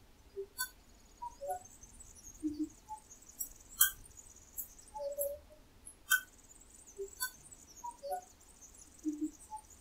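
Sparse abstract sound-art piece of sharp clicks and short blips at scattered pitches over a faint high hiss, quiet, repeating as a loop about every six and a half seconds.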